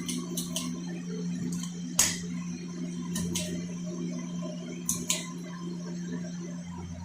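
Harbor Breeze Armitage ceiling fan running with a steady motor hum, and a few sharp, irregular clicks over it, the loudest about two seconds in.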